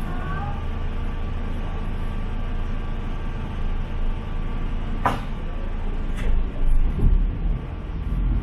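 Local diesel train running along the track: a steady low rumble with a faint steady tone. Two sharp clacks come about a second apart a little after halfway, then a deeper surge of rumble near the end.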